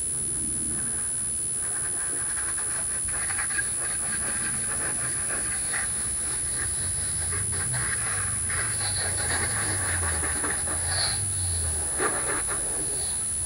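Garden hose spraying water onto a soapy car body: a steady hiss of spray with splashing on the panels. A low rumble comes in for a few seconds in the second half, over a constant high-pitched whine.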